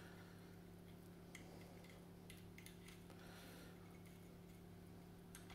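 Near silence: a steady low hum with a few faint ticks, as a small hex key turns a grub screw back into the rifle's muzzle mount.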